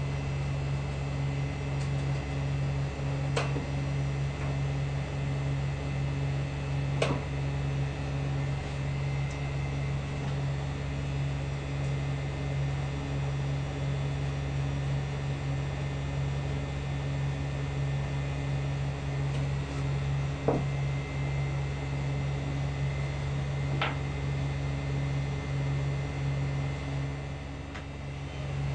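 Steady low machine hum, like a fan or small electric motor running, with a few light clicks or taps scattered through it, the sharpest about 7 and 20 seconds in.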